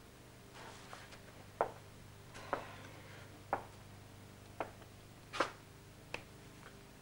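A series of six short, sharp knocks or taps, spaced roughly a second apart and uneven in strength, over a steady low hum.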